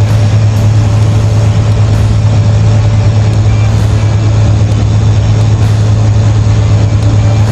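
Crane's engine running steadily at a constant speed, a strong low hum with mechanical noise over it.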